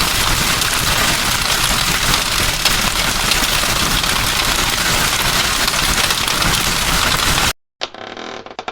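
Hailstorm: a dense, steady hiss of hailstones pelting down, cutting off suddenly about seven and a half seconds in. Near the end a creaking door starts, a run of quick clicks.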